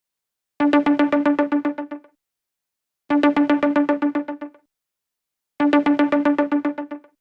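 A phone ringtone: a fast run of repeated electronic notes on one pitch, fading over about a second and a half, played three times at even intervals about two and a half seconds apart.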